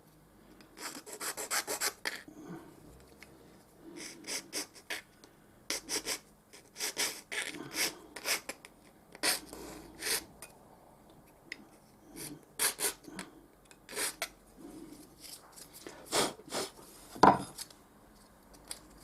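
Hand file rasping at the edges of a square hole cut in a caravan socket-panel blanking plate, in short runs of quick strokes with pauses between: the burrs are being filed off to finish the hole. One sharper knock near the end.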